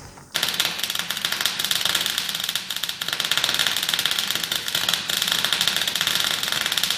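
Wood chipper chipping branches: a dense, rapid clatter of the knives cutting wood, starting suddenly about a third of a second in.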